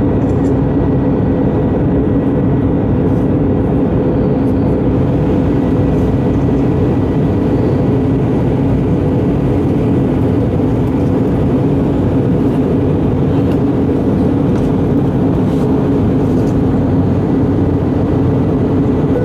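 Steady engine and airflow noise inside a jet airliner's cabin on approach, with a constant low hum running underneath.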